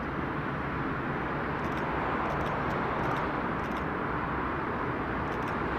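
Boeing 787-9's twin turbofan engines at taxi thrust, a steady whooshing hum that swells slightly as the airliner rolls past.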